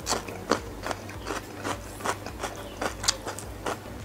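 Close-miked chewing of spicy instant noodles: a string of short wet clicks and smacks, about two or three a second.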